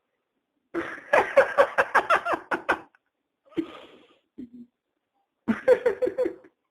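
A man laughing hard: a long run of rapid ha-ha pulses, a wheezing breath drawn in, then another burst of laughter near the end.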